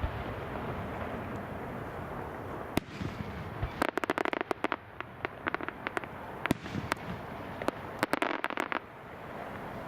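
Aerial fireworks crackling: a single sharp crack about three seconds in, then two bursts of rapid crackles, one about four seconds in and one near eight seconds, with scattered pops between them. A low rumble fades out as the crackling begins.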